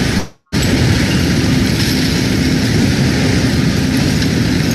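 Heavy machinery working a recycling tipping floor: the engines of a wheel loader and a material-handling crane running, a very loud, steady din with a low rumble. It cuts out briefly just after the start.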